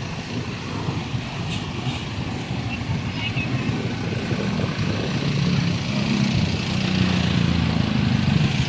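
Street traffic with the engine of a heavy vehicle running close by, growing louder over the second half.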